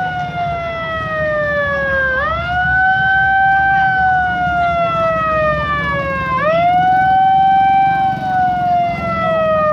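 A siren wailing, its tone sweeping up quickly and then sliding slowly down, about every four seconds, over a steady low rumble.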